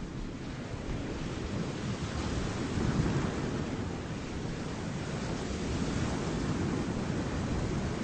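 Steady low rumble of wind buffeting the microphone, mixed with the distant roar of ocean surf breaking along the shore.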